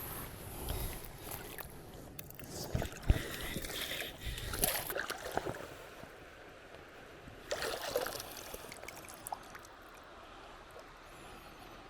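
Irregular splashing and sloshing of water with a few sharp knocks, as a hooked trout is played and landed in the shallow creek. It grows quieter after about eight seconds, leaving a faint steady wash of water.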